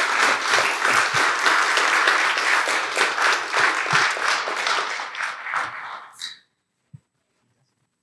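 Audience applauding, tapering off and stopping about six seconds in.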